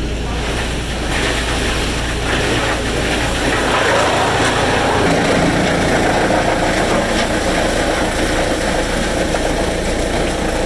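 Heavy sawmill machinery running steadily: an engine drone under a loud, noisy rush. About four seconds in, the deep hum drops away and the higher noise grows louder.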